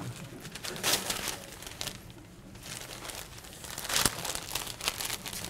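Gift wrapping being crinkled and torn by hand as a present is unwrapped, in irregular rustling bursts, the loudest about four seconds in.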